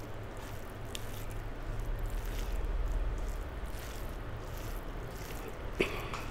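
Fingers mixing and squishing boiled rice with a fried vegetable dish on a plate: faint soft squelching, with a sharper tap against the plate near the end.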